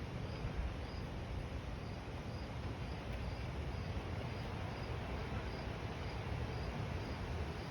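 Crickets chirping in a steady rhythm, about two chirps a second, over a constant low rush of wind.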